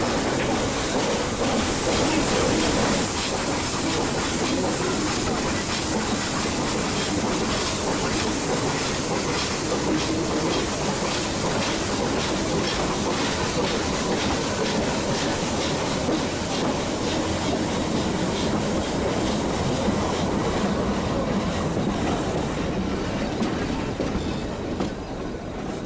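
Metre-gauge Nilgiri Mountain Railway train running, its wheels clattering steadily over the rails.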